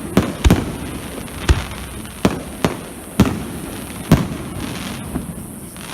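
Aerial fireworks shells bursting: a string of sharp bangs, about eight in six seconds at uneven spacing, some with a short low rumble after them.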